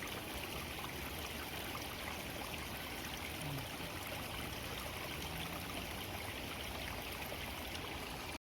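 Steady rush of flowing water, an even hiss with no change, which cuts out for a split second near the end.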